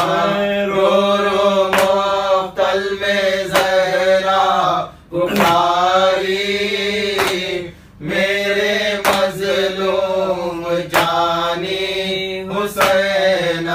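Noha, an Urdu lament for Imam Hussain, sung as a slow, mournful chant. A sharp beat falls about once a second over a steady low drone, and the singing breaks off briefly twice.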